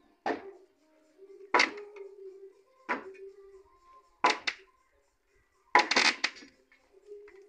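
Sharp knocks and clanks from work on timber roof shuttering being taken down, roughly one blow every second and a bit, then a quick double hit and a cluster of several knocks near the end. A faint steady hum runs between the blows.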